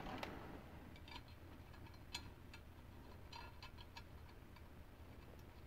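Faint, light ticks of a small steel main nut being threaded by hand onto a micrometer frame's barrel, scattered through, with a small cluster about three and a half seconds in.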